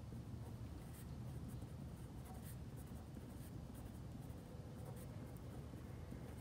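A pen writing on paper: faint, scratchy strokes as a word is written out, over a low, steady hum.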